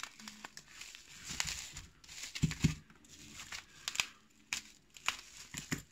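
Bubble wrap crinkling and crackling in short bursts as it is handled and unwrapped by hand, with a couple of soft knocks about two and a half seconds in.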